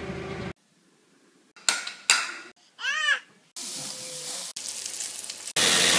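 A rapid string of unrelated one-second snippets: a forklift's motor humming at the start, a near-quiet second, two sharp knocks, a short pitched sound that rises and falls, then meat and skewers sizzling on a charcoal kettle grill, and a loud rushing noise near the end.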